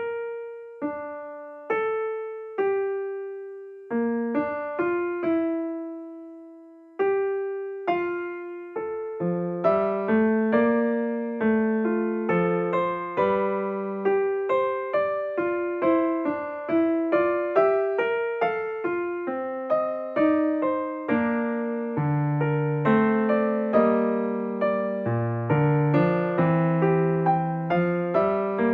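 Soft solo piano music starting up: slow single notes at first, filling out into a steadier, fuller melody with lower accompanying notes from about nine seconds in.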